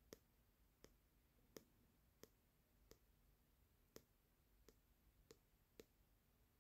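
A series of faint, sharp clicks, about nine of them, coming at uneven intervals of under a second.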